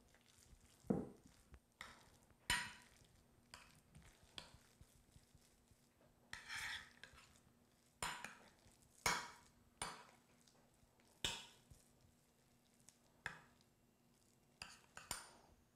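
A utensil spreading a thick meat mixture in a baking dish: intermittent scrapes and sharp taps against the dish, about a dozen separate strokes.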